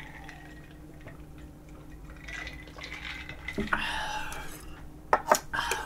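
Someone drinking an iced drink from a glass jar, with soft liquid and swallowing sounds; the glass is set down with a knock about three and a half seconds in, followed by a few sharp clicks near the end.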